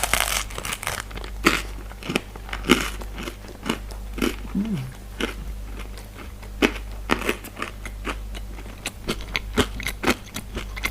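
Close-miked biting into a slice of pizza and chewing it. A sharp bite comes right at the start, followed by irregular crunchy, wet chewing clicks.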